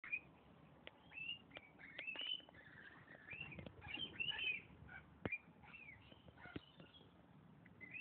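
A flock of small songbirds chirping, many short arching calls overlapping one another, with a few sharp clicks among them.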